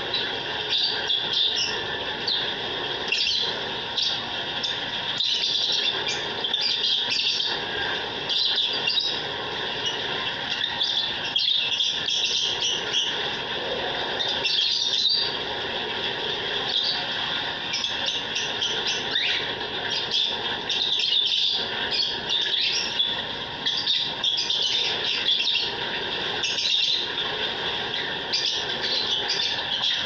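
Aviary of lovebirds and other small cage birds chattering: a dense, continuous mix of many overlapping high-pitched chirps and squawks.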